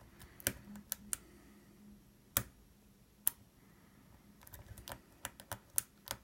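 Small sharp metal clicks from a lock pick and tension wrench working in a Yale padlock's pin-tumbler cylinder. Scattered single clicks, one louder about two and a half seconds in, then a quicker run of light clicks over the last couple of seconds.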